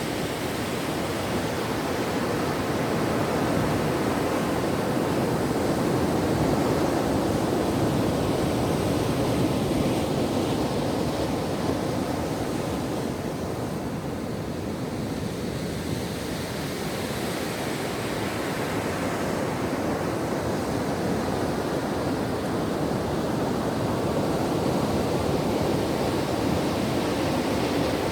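Ocean surf breaking and washing on a beach: a continuous rushing wash that swells and eases slowly, dipping a little about halfway through and building again.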